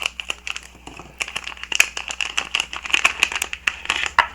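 Small plastic bag crinkling and crackling in rapid irregular bursts as it is cut open and handled to get at a Wi-Fi card.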